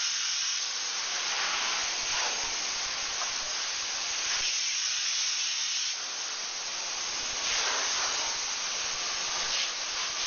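Steady hiss of a spray foam gun spraying Icynene open-cell (soft) foam insulation, easing slightly about six seconds in.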